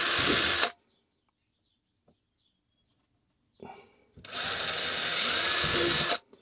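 18-volt cordless drill running in two short bursts as it bores small screw holes through a plastic dashboard panel: the first burst stops under a second in, the second runs for about two seconds near the end.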